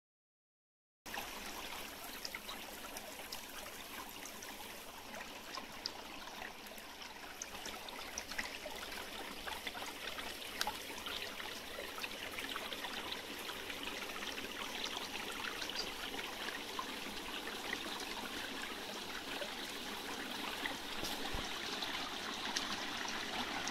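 Small, shallow brook running steadily over stones and grass, the water sound starting about a second in.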